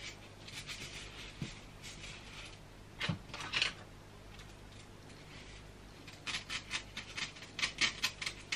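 Quick scratchy strokes of a small hand tool working through the front hairline of a lace-front wig. They come in short runs, the last and fastest at about five strokes a second near the end.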